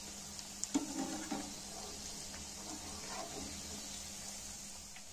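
Chicken and potato cutlets deep-frying in hot oil, with a steady sizzle. A metal spatula clinks and scrapes against the pan about a second in and again around three seconds.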